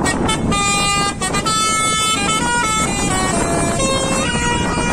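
Telolet multi-tone musical air horn on a grocery lorry playing a quick tune: loud held horn notes that step from pitch to pitch every fraction of a second, several tones sounding together, with a brief break about a second in, over a constant low rumble.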